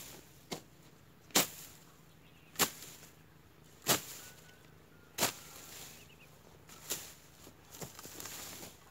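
A long-handled blade swung into dry grass and weeds to clear a field: sharp cutting strokes, about seven of them, roughly one every second and a half.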